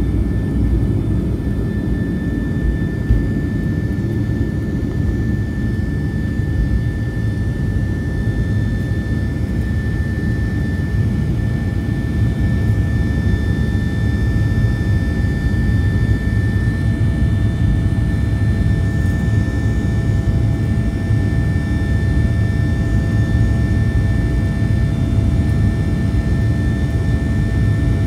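Boeing 737-800's CFM56-7B turbofan engines at takeoff thrust, heard from inside the cabin over the wing: a steady loud rumble with a constant high whine from the fan. The deepest rumble is heaviest for the first three seconds or so, then eases as the plane climbs.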